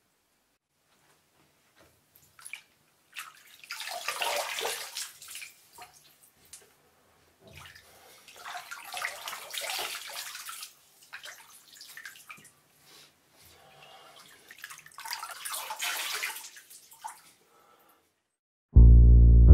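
Hands splashing water in a bathroom washbasin, in four uneven bursts of a second or two with pauses between. Loud sustained music chords cut in just before the end.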